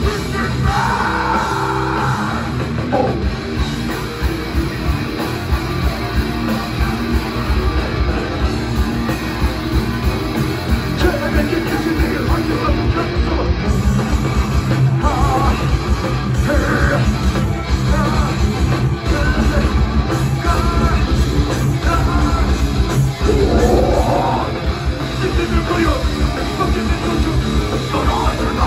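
Metal band playing live: distorted electric guitars, bass and drums, with a vocal coming in now and then.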